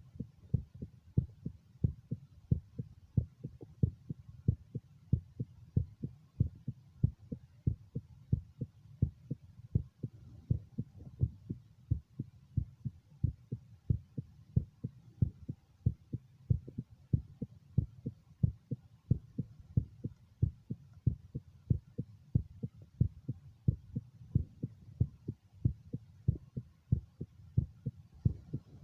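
A human heartbeat heard through a stethoscope over the mitral area of the chest: a steady, even rhythm of short, low thumps.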